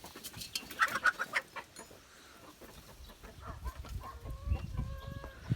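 Chickens clucking and squawking: a quick run of loud, short squawks about a second in, then softer clucks and a held call near the end.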